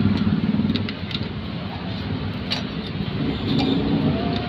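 A motor vehicle engine runs steadily in the background, with a few light metallic clicks as the socket, pin and C-clamp are handled against the connecting rod.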